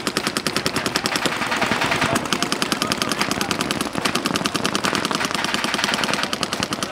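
Several paintball markers firing rapid, unbroken strings of shots: a fast, steady rattle of many pops a second.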